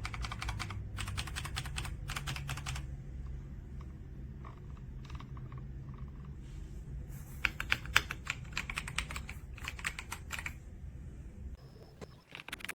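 Typing on the AJAZZ AK820 mechanical keyboard: quick runs of keystrokes at the start and again from about seven seconds in, with scattered single key presses between, over a low steady hum.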